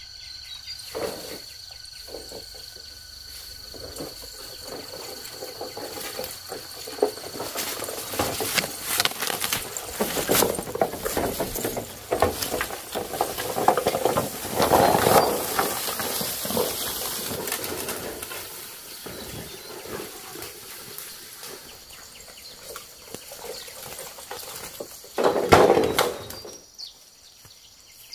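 Rustling of bamboo leaves and undergrowth with many small knocks and clicks as cut bamboo poles are handled and moved. It swells to its loudest about halfway through, and a short loud burst of rustling comes near the end.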